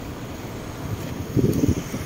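Low rumble of a slowly moving car, heard from inside, with wind buffeting the microphone; it grows louder about one and a half seconds in.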